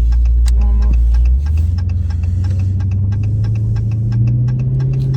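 Dodge Scat Pack's 6.4-litre HEMI V8 running with a deep drone; about a second and a half in its note steps up and then climbs slowly as the revs rise. A run of light ticks sounds over it throughout.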